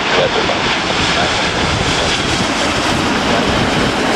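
Boeing 787 Dreamliner's jet engines as it passes low on short final, mixed with a steady hiss of strong wind and heavy rain beating on an umbrella over the microphone.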